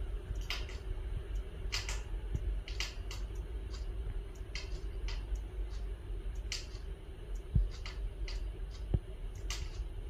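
Pet budgies making short, sharp, high clicks at irregular intervals, roughly one a second, over a steady low hum, with a couple of soft knocks near the end.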